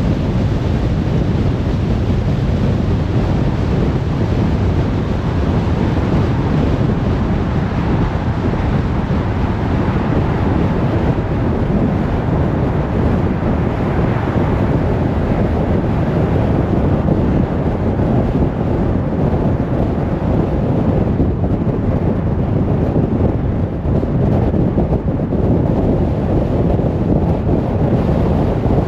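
Car driving steadily on a motorway: a constant rush of road and wind noise, heaviest in the low end.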